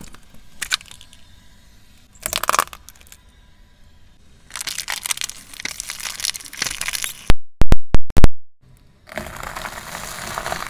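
Car tyre rolling over and crushing things: plastic jelly tubs cracking and splitting with a run of crackling, a few very loud bangs about halfway through, then crisp toasted bread slices crunching near the end.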